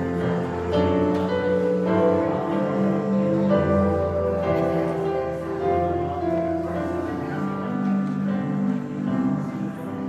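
Grand piano and electronic keyboard playing a slow prelude together, with long held notes.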